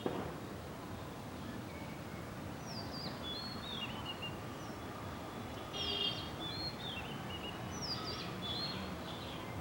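A bird singing: a short phrase of falling whistled notes, repeated three times, over steady outdoor background hiss. A brief click right at the start.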